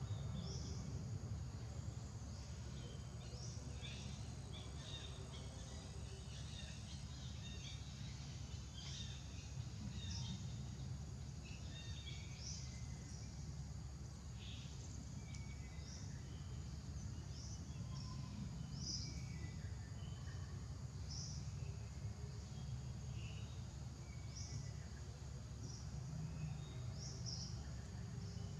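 Outdoor ambience: a steady low rumble with many short, high chirps of small birds scattered throughout.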